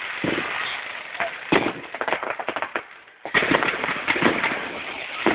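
Fireworks display: aerial shells bursting overhead in a dense run of crackling pops. A sharper bang comes about a second and a half in, and a fresh wave of crackling starts a little after three seconds.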